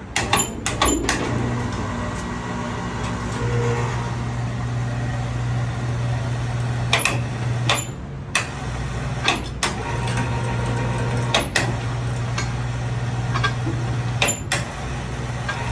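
Electric hoist on a crawfish cooker's gantry lift running in short stretches: a low, steady motor hum that starts and stops several times, with sharp clicks as it switches on and off.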